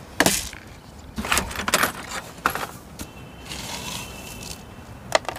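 Coarse potting grit clattering and rattling as handfuls of it are picked through and scooped up. There are several short bursts of clicking, with a brief scraping hiss in the middle.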